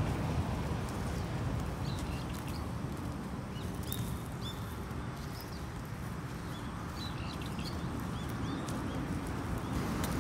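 Small birds chirping in short clusters of quick rising-and-falling chirps, over a steady low rumble.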